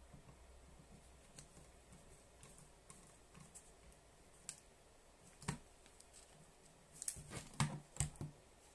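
Scattered faint clicks and taps of a small screwdriver and the plastic casing of a Sony Walkman WM-50 cassette player being screwed back together, with a cluster of louder clicks about seven seconds in.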